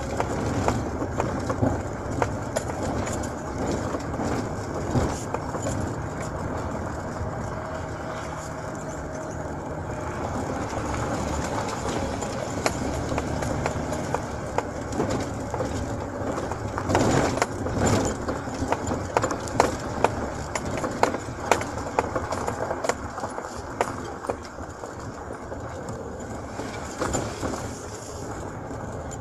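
Car driving slowly over an unpaved dirt road, heard from inside the cabin: steady engine and tyre noise with frequent knocks and rattles from the bumps, and a louder run of jolts about two-thirds of the way through.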